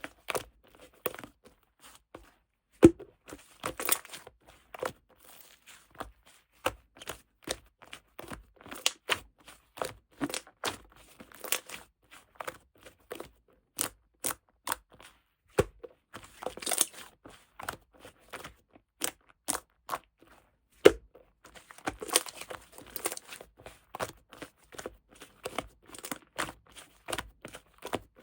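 Slime being pressed, squished and stretched by hand, giving irregular sharp pops and clicks with short spells of crackling. The loudest pops come about three seconds in and again about twenty-one seconds in.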